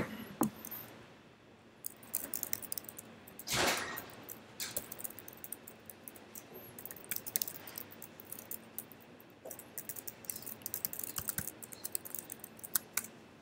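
Typing on a computer keyboard: a quick, uneven run of key clicks as a terminal command is entered, starting about two seconds in. A brief, louder rush of noise comes about three and a half seconds in.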